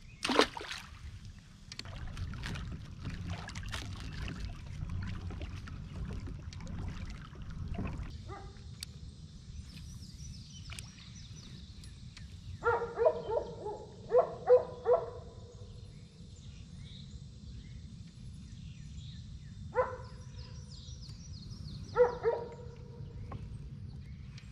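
Water sloshing and splashing beside a kayak for the first several seconds, with scattered knocks. Then a steady, high insect hiss with a few groups of short, pitched calls: several in a row about halfway through and two more near the end.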